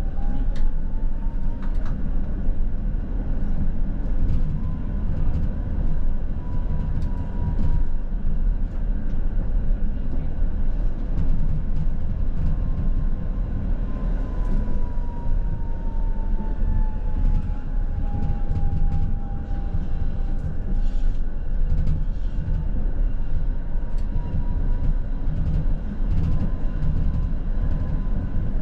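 A coupled pair of ČKD Tatra T6A5 trams running along the track: a steady low rumble of wheels on rails with occasional clicks. Over it a motor whine climbs in pitch during the first couple of seconds as the tram gathers speed, then holds. It sags lower about halfway through and climbs back up near the end.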